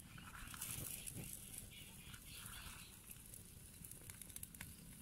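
Wood fire crackling faintly under fish grilling on a wire grid, with a few sharp pops.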